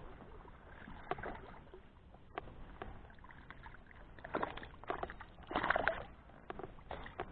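A small bass splashing and thrashing at the water's surface as it is reeled in beside a kayak. The loudest splashes come about four and a half and about five and a half seconds in, with scattered light clicks and knocks in between.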